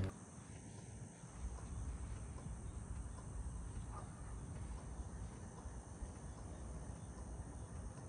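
Faint steady chirring of crickets, with a low rumble underneath.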